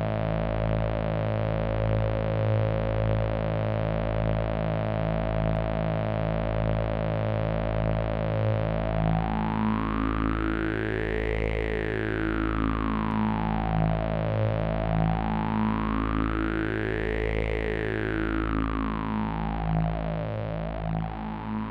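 AnalogFX SER-2020 analog synthesizer holding a low, buzzing, pulsing drone. Partway through, a resonant filter starts sweeping slowly up and down, so a whistling overtone rises and falls about every six seconds.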